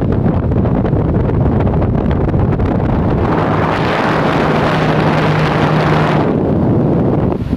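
Arno table fan running, its airflow buffeting the microphone in a steady rush of wind noise. About three seconds in, the rush turns brighter with a steady low hum for some three seconds, then settles back.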